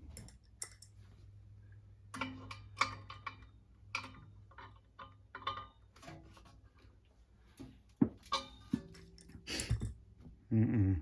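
Metal clicks, taps and knocks of a blower motor and its mounting bracket being handled and fitted, over a low steady hum. Near the end comes a short, loud pitched whirr.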